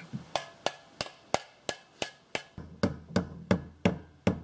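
A hammer striking sheet metal over a wooden stock, folding down the metal's protruding edges. There are about fourteen sharp, even blows, roughly three a second.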